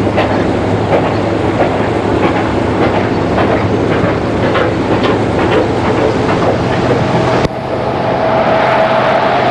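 Steam locomotive hauling a train of covered wagons, the wheels clicking and clattering over the track. A sudden drop in level comes about three quarters of the way through, followed by a steady tone.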